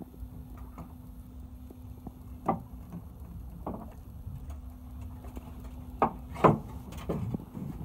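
Fishing boat's engine idling with a low steady hum, under a few sharp knocks at uneven intervals, the loudest about two and a half seconds in and twice around six seconds in.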